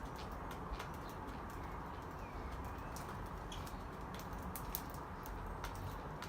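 Budgerigars feeding in an aviary: scattered small sharp clicks and a soft brief chirp about two seconds in, over a steady low rushing noise.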